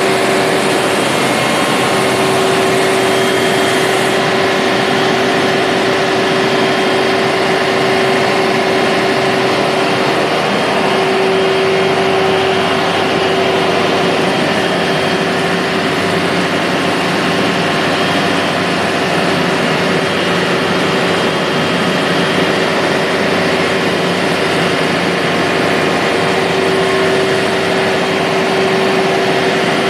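Large diesel generator set running steadily: a loud, even engine drone with a steady hum held over it.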